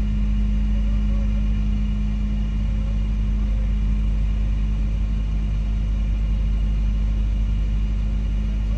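Semi-truck diesel engine idling steadily: a deep, even rumble with a constant hum that does not change.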